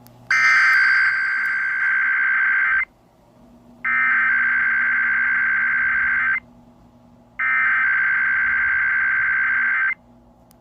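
Emergency Alert System SAME header: three identical bursts of digital data tones, each about two and a half seconds long with about a second's pause between them, opening a Required Weekly Test.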